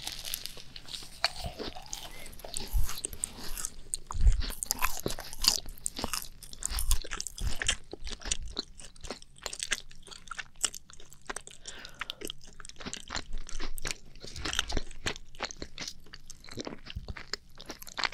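Two people biting into and chewing macarons close to the microphone, the crisp shells crunching in many small, irregular crackles with a few louder bites.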